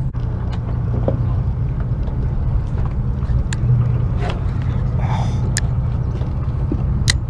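Boat engine running with a steady low drone, with a few sharp clicks over it.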